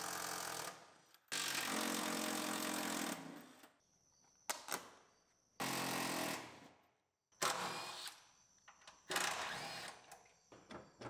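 Cordless impact driver hammering out rear-seat mounting bolts in about six bursts, each up to a couple of seconds long, with pauses between them. A few light knocks come near the end.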